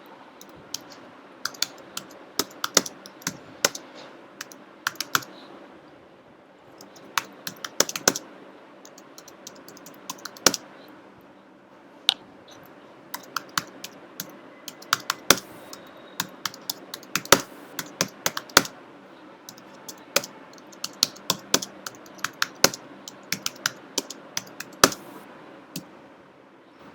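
Typing on an Apple computer keyboard: irregular runs of sharp key clicks with short pauses between bursts.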